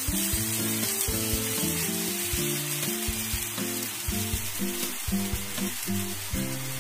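Onions, peanuts and turmeric sizzling in oil in a kadai as soaked poha is tipped in from a steel colander. Background music with a steady beat runs underneath.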